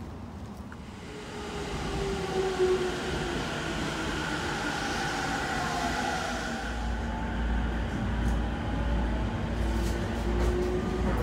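A JR Musashino Line electric commuter train moving at the platform, its whine falling in pitch. Then the steady low rumble of riding inside the moving train car.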